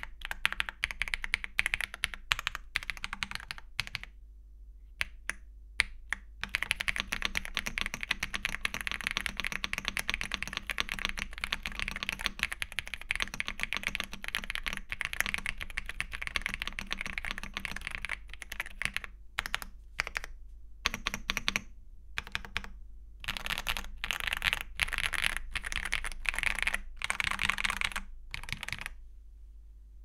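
Typing on an Ajazz AK820 Pro mechanical keyboard with stock Ajazz Gift linear switches and OEM-profile PBT keycaps, fully foamed: rapid keystrokes in bursts with a few short pauses, stopping about a second before the end.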